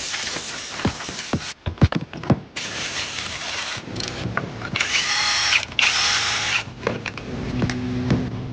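Power tool running in two short bursts of about a second each, preceded by several sharp clicks and knocks of tools.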